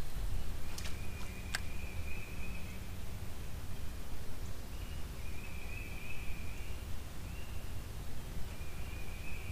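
Outdoor ambience on the water: a steady low rumble, two sharp clicks about a second in, and a short high buzzing sound that comes and goes several times.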